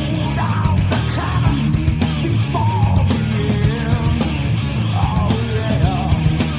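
Grunge rock band playing loud distorted electric guitars, bass and drums, with a voice singing in a strained, yelling style over them.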